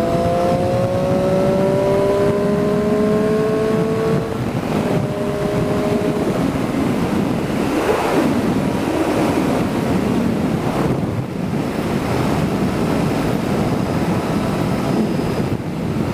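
Motorcycle engine rising in revs under acceleration for about four seconds, then mostly wind rushing over the microphone as the bike rides on.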